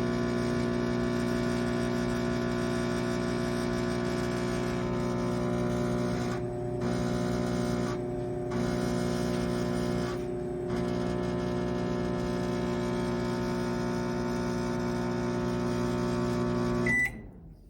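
Toshiba air fryer microwave oven running in convection cooking mode: a steady electrical hum made of several held tones. It dips briefly three times in the middle and cuts off near the end.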